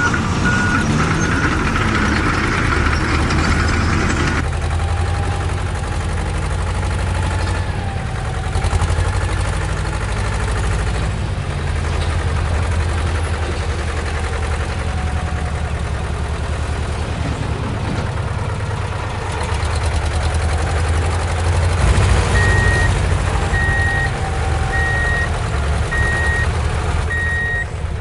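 Simulated diesel engine sound of a remote-control construction truck running steadily. About 22 seconds in, a reversing beeper starts, about one beep a second.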